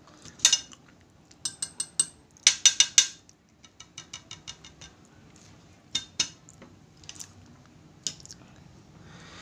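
Metal fork clinking and scraping against a cut-glass plate while cutting a soft cassava cake, in scattered sharp clicks, with a quick run of light ticks about four seconds in.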